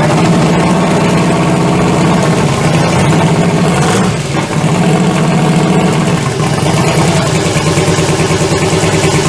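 Freshly swapped GM LS V8 running at a steady idle, with a brief dip about four seconds in. It sounds off, as though one of the plug wires were swapped.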